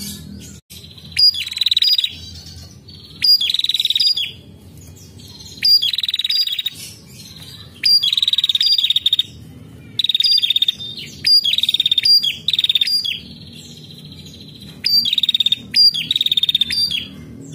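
A caged female prenjak calling over and over in loud, rapid chattering trills about a second long, with short gaps and sharp high notes between them.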